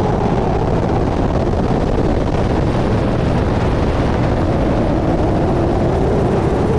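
HH-60 Pave Hawk helicopter in flight, heard from a camera mounted on its nose refueling probe: a steady, loud noise of main rotor and turbine engines mixed with the rush of air over the microphone.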